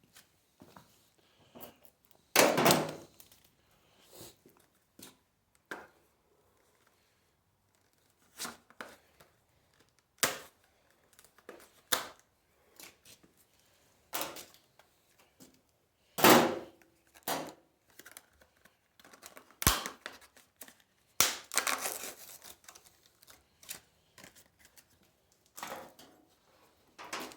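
Blister packaging of an oscillating multi-tool blade being cut open and handled: irregular knocks and clicks with short stretches of tearing and crinkling plastic and cardboard, and a few louder clunks along the way.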